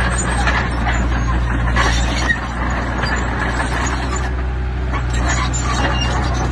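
Heavy diesel earthmoving machinery running steadily, with irregular clatter and knocks over the engine and one sharper knock a little past two seconds in.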